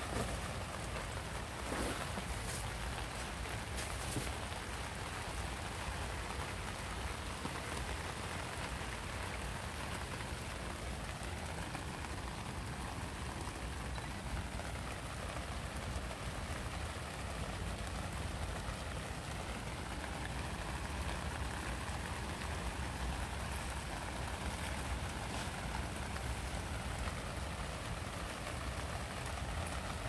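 Steady rain falling outdoors, a continuous even hiss with a low rumble underneath. A few sharp clicks come in the first few seconds.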